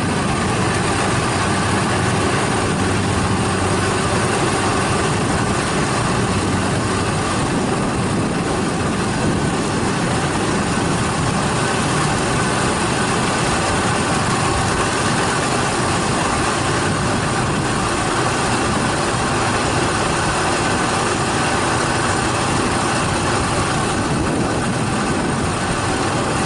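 Kubota DC70 rice combine harvesters running steadily under load as they cut and thresh rice. Their diesel engines and threshing machinery make a continuous, even drone.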